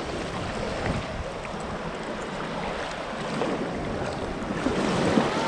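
Small waves washing up and running back over a sandy beach, with wind rumbling on the microphone. The wash grows louder near the end.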